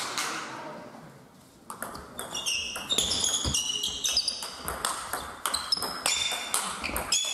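Table tennis rally: the ball clicking off the rackets and the table in quick succession. The rally starts about a second and a half in.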